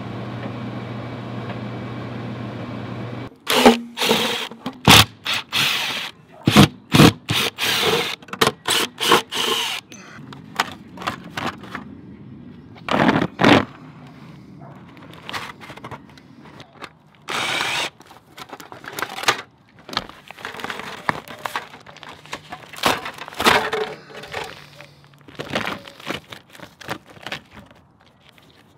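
Whirlpool front-load clothes dryer tumbling with a steady hum for about three seconds. Then a long run of sharp, irregular crackling and clattering as old foil flexible dryer duct is handled and pulled away from the wall vent, busiest just after the dryer stops and again midway.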